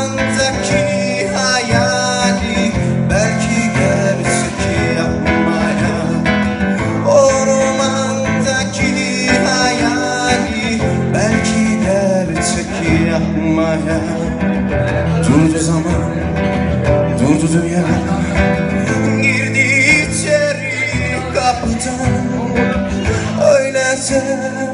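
A man singing live to his own strummed acoustic guitar.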